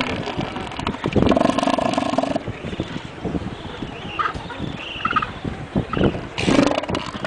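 Male southern elephant seal giving a long, throaty, pulsing call that sounds like a very long burp. One call comes about a second in and lasts about a second, and a second call starts near the end.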